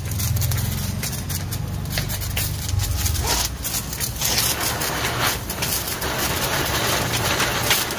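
Ground spinner firework (chakri) fizzing as it spins on the ground, with crackling sparks. A low rumble lies under it at first. The hiss grows much louder about four seconds in, as the spinner gets going.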